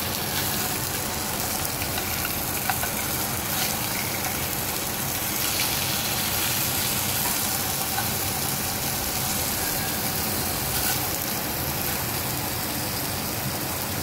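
Threadfin fillets frying in a nonstick pan, a steady sizzle with a few faint crackles.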